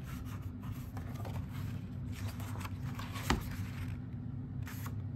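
Pages of a thick photo book being handled and turned, with light paper rustling and one sharp tap about three seconds in, over a steady low hum.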